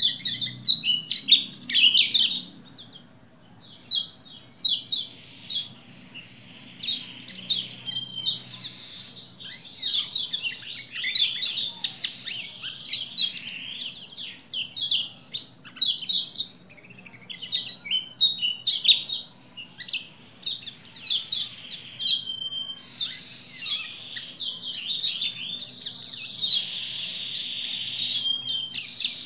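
A male Lombok white-eye (pleci lombok) singing in full voice: rapid, high, twittering chirps strung into long continuous phrases, with a short lull a few seconds in.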